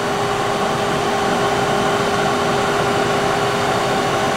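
SMTW H163 plain cylindrical grinder running: a steady mechanical whir with a steady hum tone, from the wheel motor and hydraulics, while the wheel head moves slowly in on hydraulic infeed.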